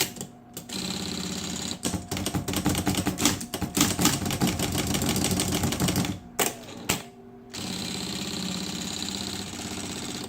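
Brother electric typewriter running on its motor, rewound for 220 V: a steady motor hum with long runs of rapid key strikes, a few single clacks about six and a half seconds in, then the motor humming on its own near the end. The motor runs fine after the rewind.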